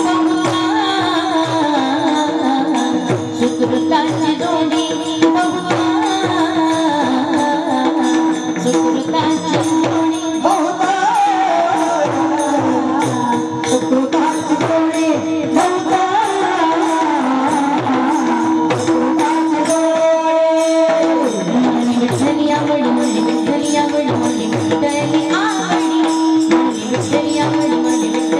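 Music: a steady held drone note throughout, a winding melody line gliding above it, and quick, dense percussion strokes.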